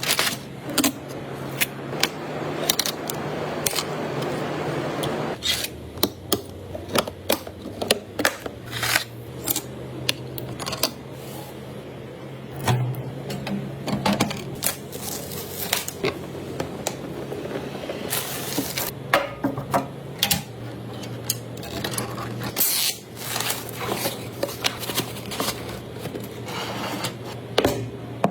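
Computer parts being handled and fitted by hand during a PC build: irregular clicks, taps and scrapes of plastic and metal parts over a low steady hum.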